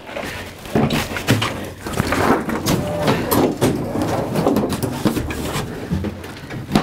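Scuffling of a physical struggle in a stripped aircraft fuselage: irregular knocks, bumps and scrapes as bodies and shoes hit the metal floor and panels.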